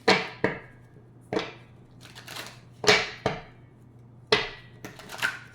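Tarot cards being handled on a table: a series of sharp, irregular slaps and taps, about eight in a few seconds, as the deck is shuffled and cards are put down.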